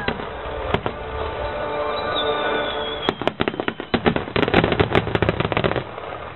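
Fireworks crackling in dense rapid volleys of sharp pops, easing off about a second in and starting again around three seconds, then stopping near the end. Music plays underneath.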